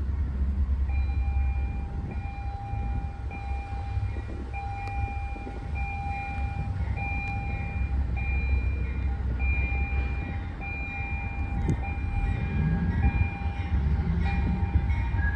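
Railroad grade-crossing bell ringing evenly, about one and a half strikes a second, starting about a second in, over the low rumble of approaching trains.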